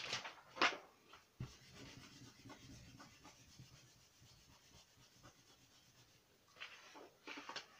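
Paper rustling as a sheet is picked up and laid down, then a hand rubbing across a sheet of paper on a craft mat, with more rustling near the end.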